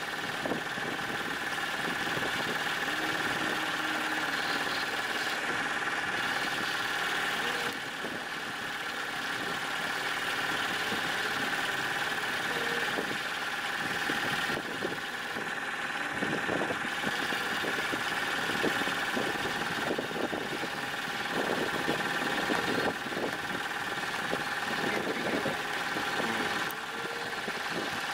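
A boat's engine running steadily, a constant drone with no change in speed.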